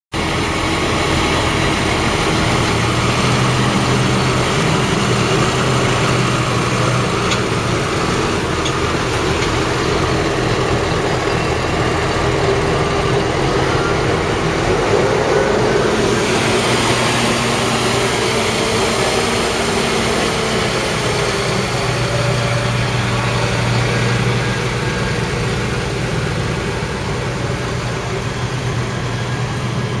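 Diesel farm tractor engines running steadily. The engine note changes abruptly about halfway through.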